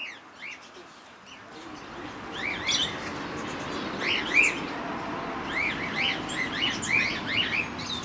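A mixed aviary flock of small cage birds (finches, lovebirds and budgerigars) chirping: many short, quick chirps overlapping, growing busier about two seconds in over a swelling background noise.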